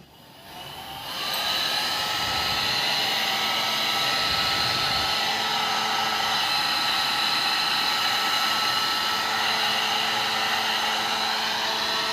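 Nova plastic hand-held hair dryer switched on, its motor and fan spinning up over about a second and a half, then blowing steadily: an even rush of air with a thin high whine.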